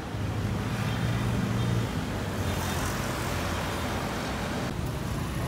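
Road traffic on a wide city boulevard: a steady low engine hum, with a passing vehicle growing louder and fading about halfway through.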